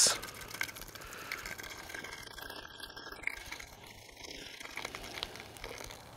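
Beer poured from a can into a hot cast-iron camp oven: a quiet trickle and splash of liquid, with a few small clicks.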